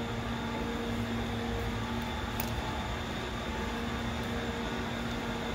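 Steady mechanical hum: a low rumble carrying a constant drone in two tones, with one short light click about two and a half seconds in.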